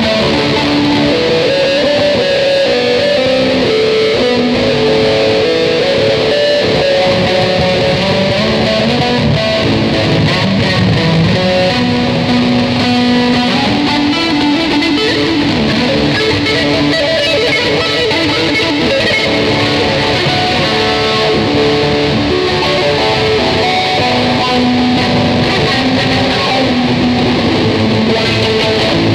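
Ibanez electric guitar playing a melodic line of held notes that move up and down, with drums going steadily underneath.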